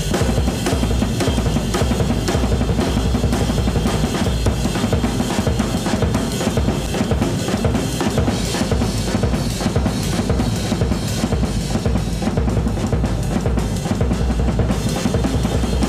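Rock drum kit played in a live drum solo: fast, dense strokes and rolls on the drums without a break, over bass drum beats, with cymbal wash.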